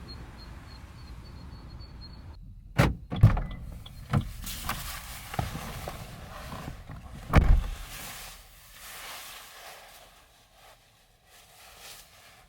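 A run of knocks and clunks of things being handled in and around a small car, such as doors and fittings. The loudest is a heavy thump about seven seconds in. A steady noise in the first couple of seconds stops suddenly.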